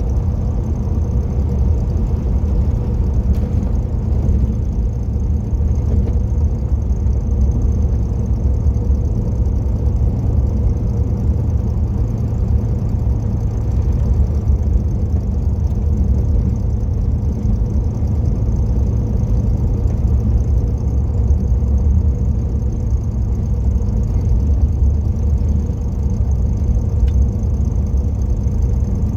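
Mopar car being driven at a steady pace: a continuous low engine and road rumble with no gear changes or revving.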